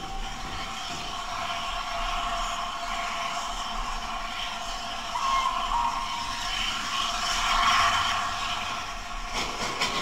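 Steam locomotive whistle held in one long steady note, joined briefly about five seconds in by a second, higher whistle, over a constant steam hiss. The whistling stops shortly before the end. These are the whistles of ex-LNER steam engines, an A3 Pacific and its J36 banker, signalling the start of an express from the platform.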